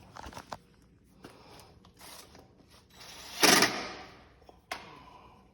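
Scattered light clicks and knocks of parts and tools being handled, with one louder, noisy scrape lasting under a second about three and a half seconds in and a sharp click shortly after.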